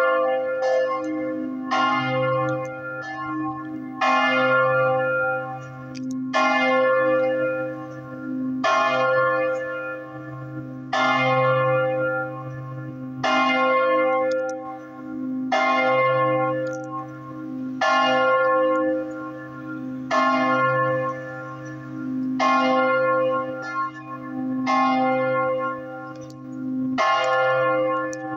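Church bells in a village bell tower ringing a peal: strong strokes about every two seconds with lighter strokes between, each ringing on into the next over a low hum.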